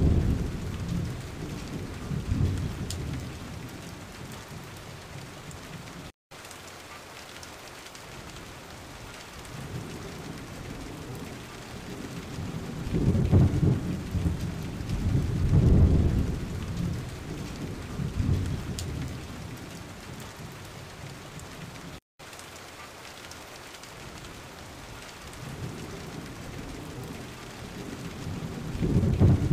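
Rain and thunder: a steady rain hiss under low rolling rumbles of thunder that swell and fade several times, cutting out abruptly twice.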